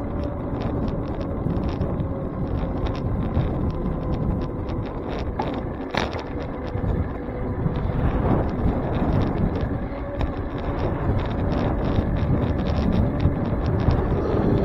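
Wind buffeting the microphone of a bike-mounted camera while riding, over a steady rumble of tyres on pavement. Frequent small clicks and rattles come through as the bike jolts over the road surface, with one sharper click about six seconds in.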